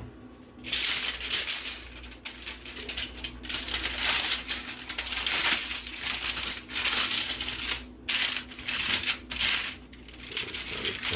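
Wrapping material being crinkled and crumpled by hand, in irregular rustling bursts with short pauses between them.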